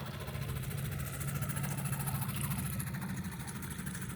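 Small outboard motor on a loaded dinghy idling steadily, a low even engine hum.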